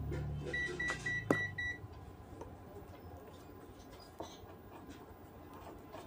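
A quick run of five short electronic beeps at one steady high pitch, about half a second to two seconds in, over a low hum that dies away. A single sharp click comes in the middle of the beeps, followed by faint small clicks.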